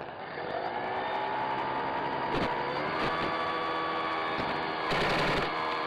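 RC model plane's motor and propeller running, its whine climbing in pitch about half a second in and then holding steady. A brief harsh burst of noise about five seconds in is the loudest moment.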